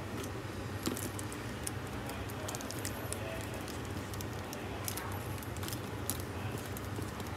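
Plastic glove crinkling, with small scattered clicks of handling as a wet cotton pad and a wooden leather strop are picked up and moved, over a steady low hum.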